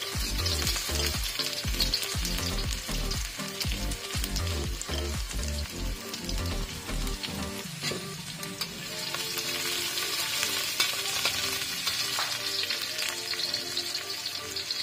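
Sliced shallots and garlic frying in hot oil in a wok, a steady sizzle, with the metal spatula clicking and scraping against the pan as they are stirred.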